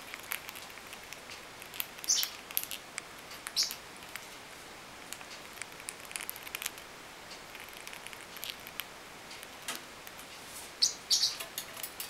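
Baby blue parrotlets giving a few short high chirps, two of them close together near the end, among scattered light clicks and taps.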